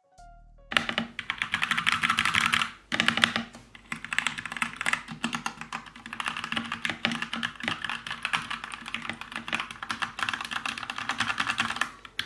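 Fast typing on a ZET GAMING Blade PRO mechanical keyboard with Kailh Box Red linear switches: a dense run of key clacks that starts under a second in, with short breaks about three and four seconds in.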